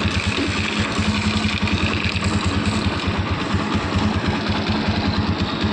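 TVS Apache motorcycle's single-cylinder engine idling with an even, rapid pulsing and a bad mechanical noise. The mechanic traces the noise to a loose Allen bolt on the starter one-way clutch striking the magneto coil inside the magnet cover, which has cut the coil's wires.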